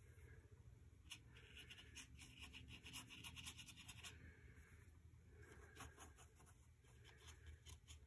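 Faint, quick scratchy strokes of a paintbrush dragged over rough watercolour paper: a run of strokes from about a second in for some three seconds, then a shorter run near the end, over a steady low hum.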